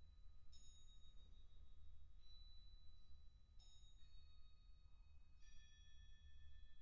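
Crotales struck softly one at a time, about five strikes, each high bell-like note ringing on and overlapping the next, over a low steady room hum.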